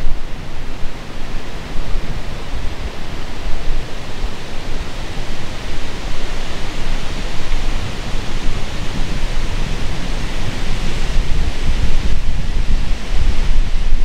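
Strong wind gusting through the woods, a steady rushing hiss of wind in the trees that swells in the middle, with a low rumble of wind buffeting the microphone.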